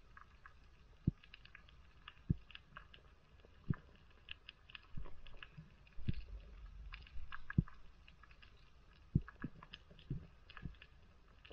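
Underwater sound on a coral reef heard through a diver's camera: scattered sharp clicks and crackles, with a dull low thump every second or two from the swimmer's movement.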